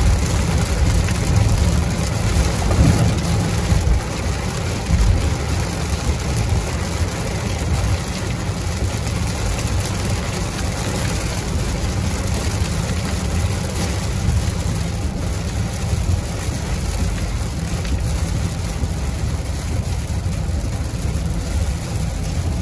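Heavy rain hitting a moving car's windshield and roof, heard from inside the cabin, over a steady low rumble of road and engine noise.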